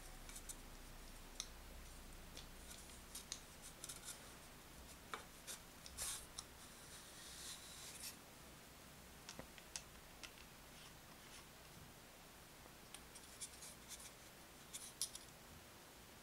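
Faint, scattered clicks, taps and scrapes of small pine wood parts and a metal bolt being handled and fitted together by hand, with a short scraping rustle about six seconds in.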